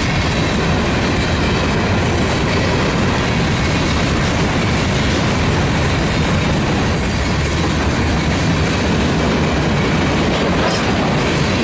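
Train rolling past, a loud, steady rumble and clatter of railcar wheels on the rails.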